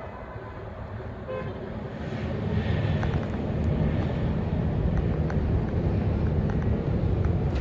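Road traffic: a motor vehicle's engine and tyres get louder about two seconds in, as a vehicle comes close, then hold at a steady rumble.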